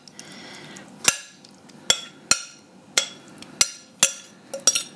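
A metal spoon knocking and scraping against a glass measuring jug as chicken filling is scraped out of it. About eight sharp clinks, irregularly spaced, with two close together near the end.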